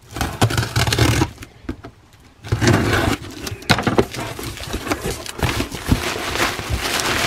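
Cardboard shipping box being handled and opened: cardboard scraping and rustling with scattered clicks, pausing briefly about a second and a half in.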